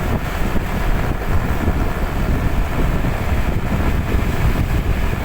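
Wind rushing over the microphone of a moving vehicle, a steady, rough low rumble of engine and road noise underneath.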